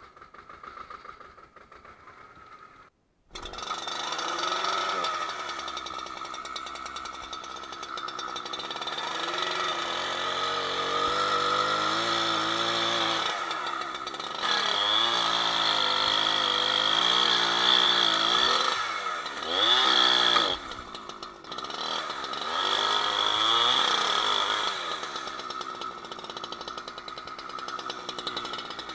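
Holzfforma 372 XP two-stroke chainsaw running, its engine pitch rising and falling again and again as it is revved. It starts suddenly about three seconds in, after a quieter opening.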